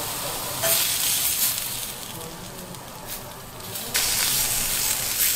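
Merguez sausages sizzling on a ridged grill pan. The sizzle grows quieter for a couple of seconds, then comes back louder suddenly about four seconds in.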